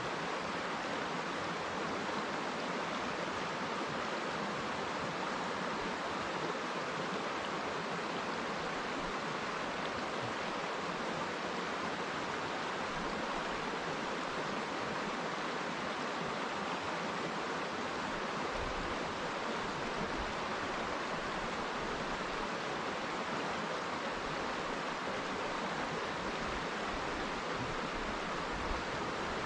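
River water flowing over rocks, a steady, even rush with no breaks.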